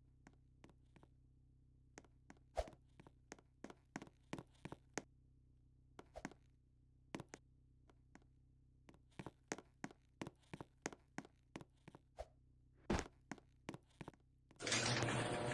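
Light, irregular taps and thuds, a few louder knocks among them, like footsteps or objects being handled. Near the end a loud, steady hissing noise with a low hum switches on suddenly.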